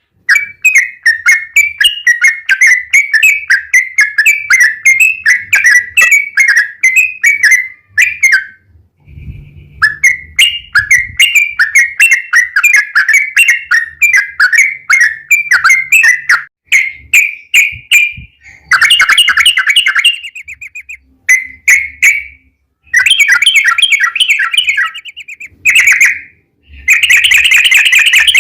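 Yellow-vented bulbul (trucukan) singing a long run of rapid, bubbling whistled notes, about three a second, in long phrases broken by brief pauses: the 'ropel panjang' song used as a lure to make other bulbuls answer.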